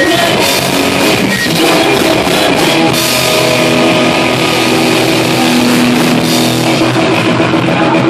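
Live rock band playing loud: a drum kit with cymbal crashes over distorted electric guitar and bass. About three seconds in, the fast drumming thins out under long, ringing held chords.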